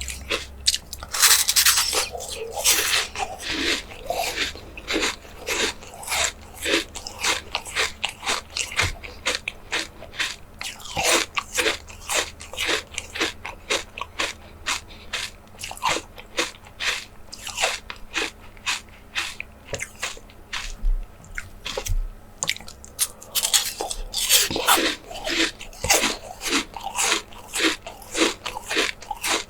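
Close-miked ASMR eating of small jelly desserts: a person biting and chewing with a fast run of sharp, wet clicks, several a second. The clicks come thickest about a second or two in and again near the end.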